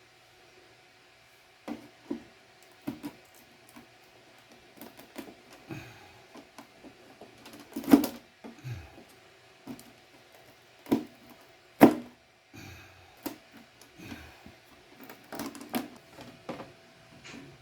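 Hands-on work on a plastic RC car body at a bench: irregular clicks, taps and knocks of plastic parts and tools being handled, with two sharper knocks about 8 and 12 seconds in, over a faint steady hum.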